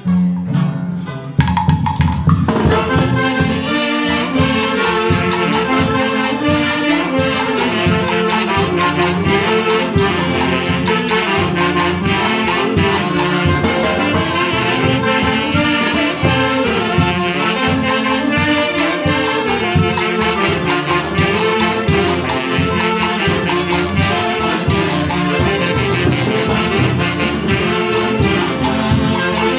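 A live Andean orquesta típica of saxophones, harp and drum with cymbal playing a lively dance tune. The band comes in about two seconds in.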